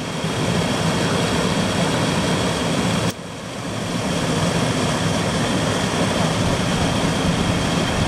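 Rushing water of a rocky waterfall cascade pouring over granite boulders, a loud steady rush. It drops suddenly about three seconds in and then builds back up.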